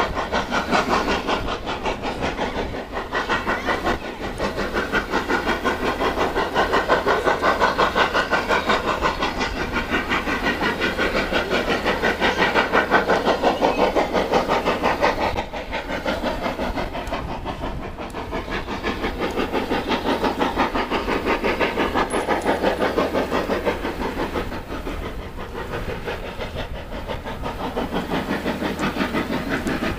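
HM Dockyards No19 steam locomotive working a freight train, its exhaust beating in a fast, even rhythm of chuffs, a little quieter after about halfway as it pulls away.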